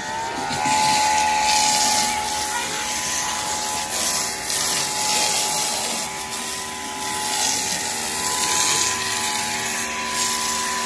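Greenworks Pro electric pressure washer motor spinning up with a rising whine in the first second, then running steadily under the hiss of the water spray.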